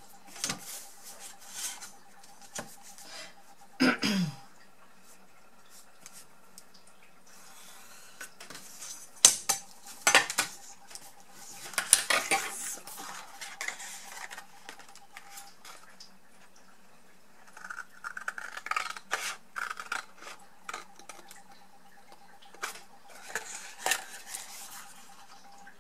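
Scissors snipping through cardstock, with the card being handled and rustling, and irregular light metallic clicks and clinks from the scissors and a metal ruler on the cutting mat.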